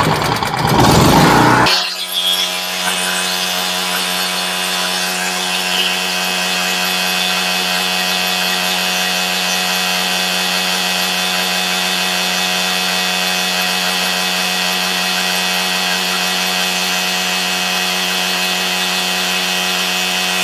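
Champion portable generator's small single-cylinder engine running steadily at governed speed. A loud rough rush fills the first second or two, then it settles into an even, unchanging drone.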